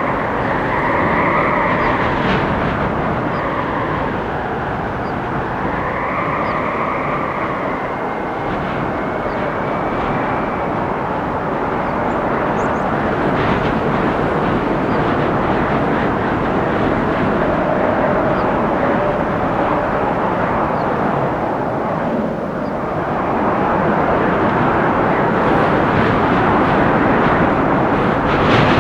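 Windstorm gusting through forest trees: a continuous rushing of wind that swells and eases, with a wavering whistle rising and falling over the first ten seconds. It drops briefly a little past twenty seconds, then builds into a stronger gust.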